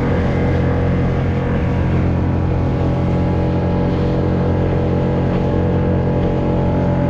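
A skiff's motor running at a steady speed while the boat is underway, with water rushing along the hull.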